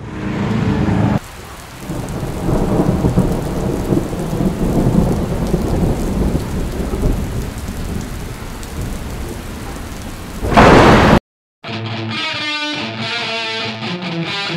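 Thunderstorm sound effect: rain and rolling thunder, rising to a loud thunderclap about ten and a half seconds in that cuts off suddenly. After a short gap, guitar music starts.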